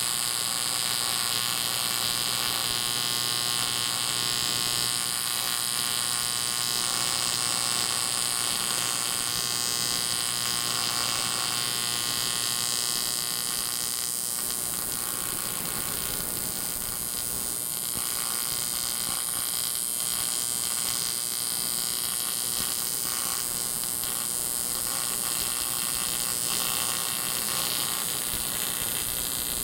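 Welding arc on the cracked aluminium case of a 1947 Harley-Davidson knucklehead engine: a steady electric buzz with hiss. A low hum underneath drops out about halfway through.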